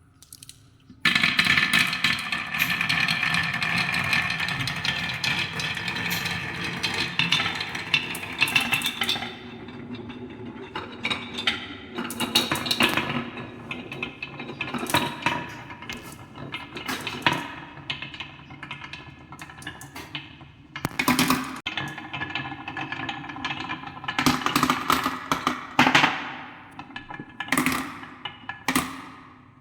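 Marbles rolling and clattering down a wooden marble run. A dense rush of rolling and clicking starts suddenly about a second in, then thins out into scattered clicks and knocks.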